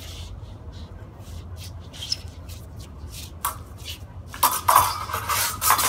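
Steel practice swords clashing in sparring: faint light taps and steps at first, then from about four and a half seconds a rapid flurry of metal-on-metal blade strikes that ring briefly.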